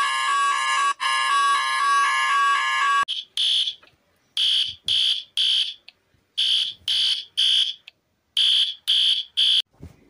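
Emergency-alert alarm tones. A harsh, steady alarm tone with many overtones runs for about three seconds, then cuts suddenly to short high-pitched beeps in groups of three or four with brief pauses between groups.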